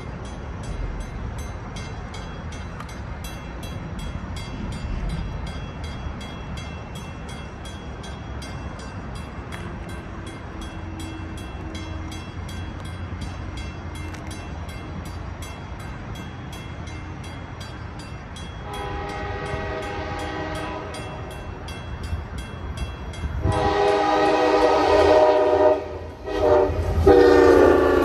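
Grade-crossing warning bell dinging steadily over the low rumble of an approaching diesel passenger train. Then the CTrail locomotive's air horn sounds for the crossing: one blast about two-thirds of the way in, then louder, longer blasts near the end with a brief break between them.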